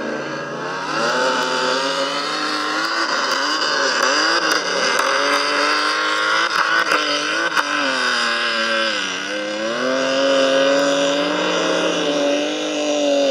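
Engines of several old race cars at full throttle on a dirt track, pitch rising and falling as they accelerate, back off and pass. A few sharp clicks sound about halfway through.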